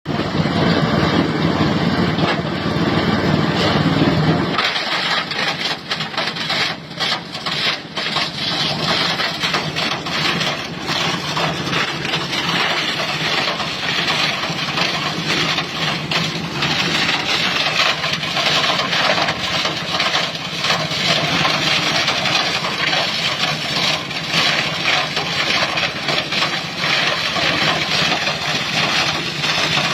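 Plastic shredder machine running steadily. About four seconds in its sound changes from a deep hum to a harsher, noisier grinding with irregular clattering, then settles into a steady run.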